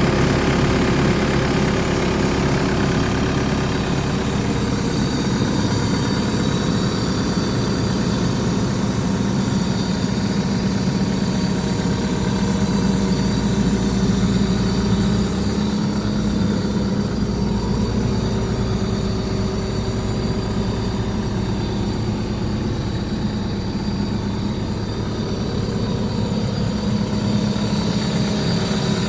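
Diesel engine of a Caterpillar 308D CR mini excavator running steadily at a constant speed.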